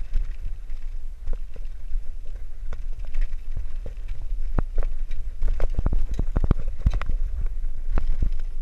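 Bicycle rolling over a rough concrete lane, with wind rumbling on the microphone and short rattles and knocks from the bike over bumps, coming thickest in the second half.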